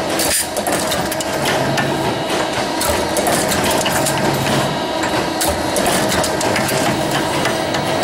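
Automatic buckle-making machine running, its press dies stamping and forming metal strip into box buckles: a dense, irregular clatter of metal impacts over a steady hum.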